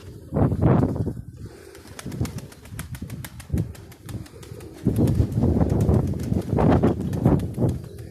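Strong gusty wind buffeting the microphone in loud surges, about half a second in and again from about five to eight seconds, with domestic pigeons cooing and flapping their wings.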